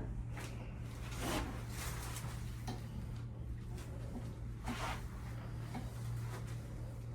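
Soft rustling and shuffling as a patient is handled and repositioned on a chiropractic treatment table, with a few faint taps, over a steady low hum.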